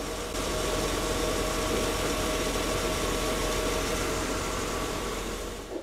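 Mercedes-Benz 380SL's 3.8-litre V8 on Bosch K-Jetronic (CIS) fuel injection idling smoothly and evenly, with a faint steady whine over the running. It cuts off suddenly just before the end.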